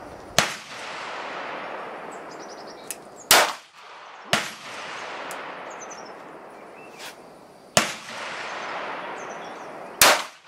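Five pistol shots from a compact semi-automatic handgun, fired singly at uneven intervals, each a sharp crack followed by a long fading echo. The last shot empties the magazine.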